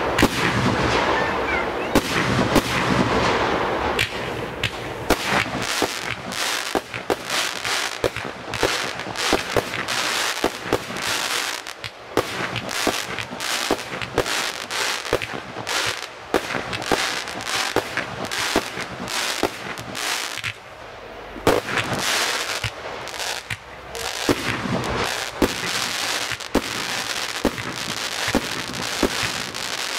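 Firework display: a rapid, continuous stream of bangs and crackling from aerial firework bursts, easing briefly about twenty seconds in before picking up again.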